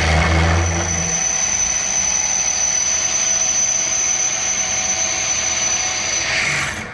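1950s Walker Turner drill press running with an 11/32-inch bit cutting the tap-drill hole for a 1/8-inch pipe thread, a steady cutting noise with a high whine. It drops off sharply near the end.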